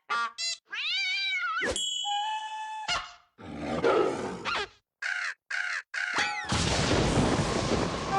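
A quick string of cartoon vocal sound effects. Short squeaky chirps are followed by a wavering, cat-like yowl and a pair of steady beeping tones. Then come a rough rumbling burst, more quick chirps, and a loud hissing rush over the last two seconds.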